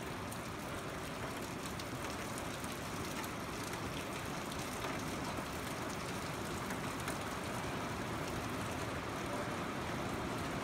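Steady, even hiss with faint scattered ticks through it.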